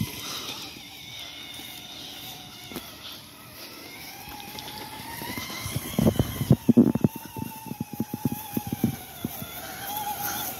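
Three Holmes Hobbies 550 brushed electric motors of a six-wheel-drive radio-control truck whining, the pitch rising and falling with the throttle. About six seconds in, a run of loud, irregular thumps and rattles joins the whine for a few seconds.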